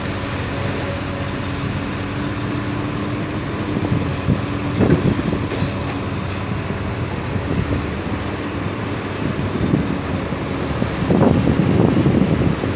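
Dump truck engine running steadily, with wind buffeting the microphone in gusts about five seconds in and again near the end.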